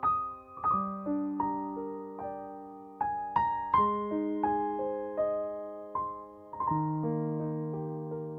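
Background piano music: single notes and chords struck at a slow, gentle pace, each left to ring and fade.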